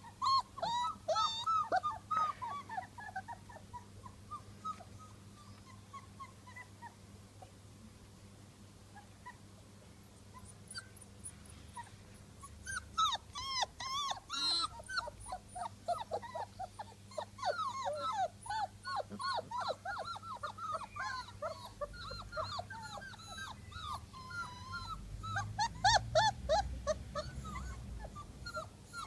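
Black and Tan Coonhound puppies whining and yipping in many short, high-pitched cries. There is a flurry at the start, a quieter stretch, then almost constant cries from about halfway on, with a low rumble near the end.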